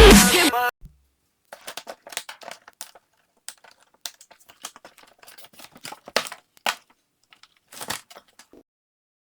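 Electronic music with a heavy beat cuts off within the first second. Then comes a scatter of crinkling, tearing and light taps from a new motorcycle tire's packaging being opened.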